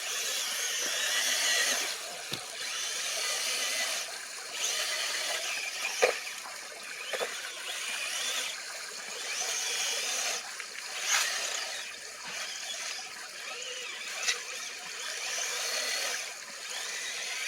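Scale RC rock crawler's small electric motor and geared drivetrain whining in on-and-off spells, the pitch rising and falling with the throttle as it crawls up wet rock. A few sharp knocks from the truck hitting the rocks come through, the loudest about six and eleven seconds in.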